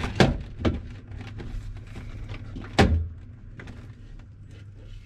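Plastic door trim panel of a GM pickup being pried and pulled off the door: a few sharp knocks and clicks as its clips let go, the loudest about three seconds in, over a low steady hum.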